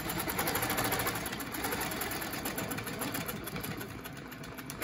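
Sewing machine stitching at speed during free-motion ruler quilting, with a fast, even needle rhythm. It gradually gets quieter and dies away near the end.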